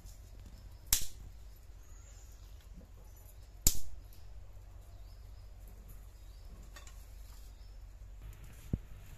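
Sharp snaps from dry bamboo kindling as a fire is lit in a clay stove: two loud cracks, about a second in and nearly four seconds in, then a smaller click near the end, over a steady low rumble.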